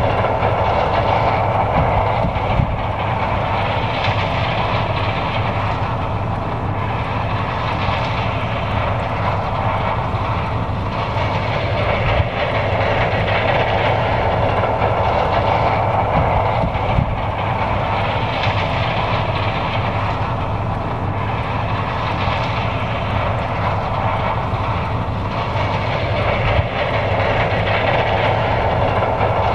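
John Deere 9550 combine running steadily while harvesting corn: engine and threshing machinery together as a constant mechanical rumble with a low hum, swelling and easing slightly every few seconds.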